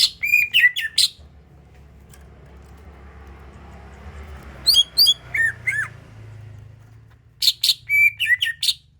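Green leafbird (cucak ijo) song: three bursts of sharp, high chirps and down-slurred whistles, each about a second long, at the start, in the middle and near the end. This is the song used as a lure to get caged birds singing.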